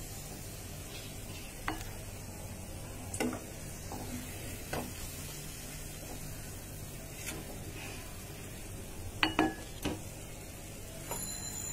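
Wooden spatula scraping and knocking against a non-stick wok as fried pitha are turned and lifted out, with a low sizzle of the pan. A few separate sharp knocks, the loudest two or three close together about nine seconds in.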